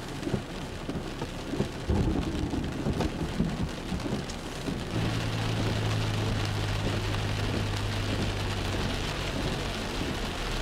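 Steady rain with thunder rumbling loudly about two seconds in, from the cloud-to-ground lightning strike that has just come down close by. From about five seconds in the rain hiss grows and a steady low hum joins it.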